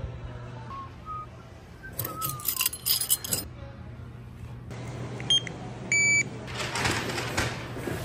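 Store ambience with a steady low hum. Items clatter about two to three seconds in, a checkout register gives a couple of short electronic beeps around five to six seconds in, and rustling follows.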